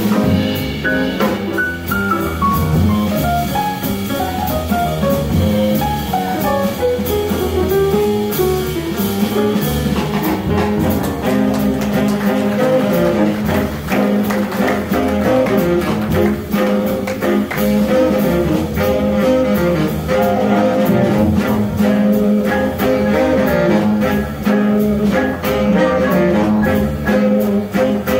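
Live swing jazz from a saxophone section, baritone sax included, backed by drum kit, bass and piano. A single saxophone line runs down in pitch at first; from about ten seconds in the full section plays held chords together, with the drums hitting sharp accents throughout.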